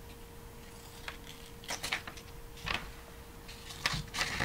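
Scissors snipping through folded plain white computer paper: several short separate snips about a second apart, with a quick cluster of cuts near the end.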